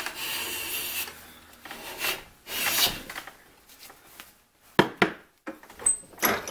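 Cast-iron hand plane shaving the edge of a cherry board: one long hissing stroke, then two shorter strokes. Several sharp knocks follow in the second half as the metal plane and the board are handled against the bench and vise, the first knock the loudest.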